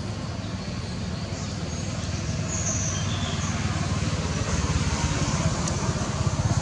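A motor vehicle engine running with a low, even pulsing, growing steadily louder.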